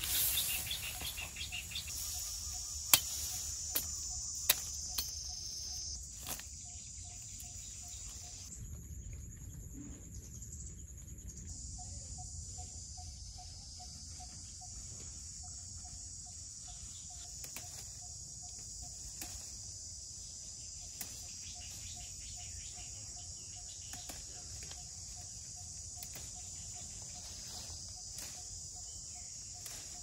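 Insects, crickets by their sound, chirring in a steady high-pitched drone, with a faint low note repeating evenly through the second half and a few sharp clicks in the first seconds.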